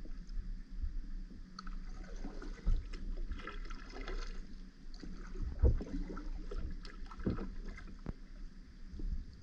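Kayak being paddled: paddle strokes splashing and gurgling through the water, with a couple of dull thumps against the hull.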